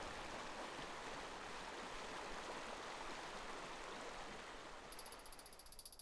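Shallow stream running over rocks, a faint steady rush that fades out about four and a half seconds in. Near the end a fast, high-pitched ticking rattle starts.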